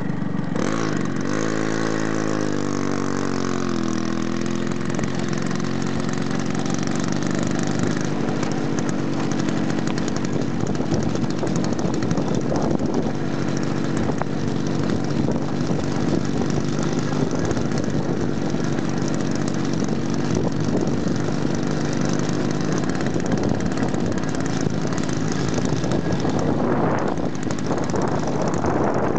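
A vehicle engine running, its pitch falling over the first few seconds as it slows, then holding steady, with rough noise over it.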